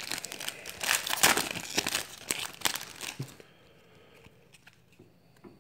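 Foil wrapper of a football trading-card pack crinkling and tearing as it is ripped open by hand, stopping about three and a half seconds in.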